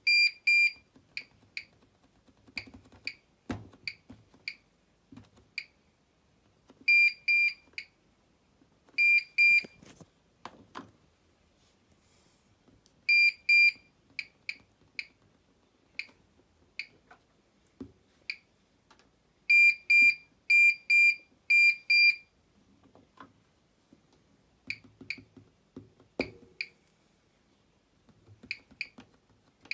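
Bosch WAN28281GB washing machine's control panel beeping: many short high beeps, some in loud quick runs of two to four, others single and softer, with faint knocks and clicks between them.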